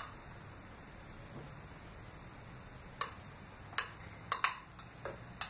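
A spoon clicking and tapping against a small glass cup as gelatin that has already set is scraped out of it into a blender jar. There are about six short, light clicks, one at the start and the rest in the second half, with quiet between them.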